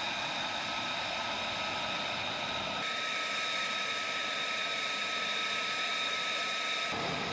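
F-35 jet engine idling on the ground: a steady whine with several high tones over a rushing hiss. The sound shifts abruptly about three seconds in and again near the end.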